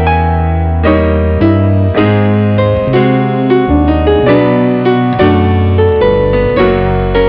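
Background instrumental music: a keyboard striking chords about every half second to a second over held bass notes.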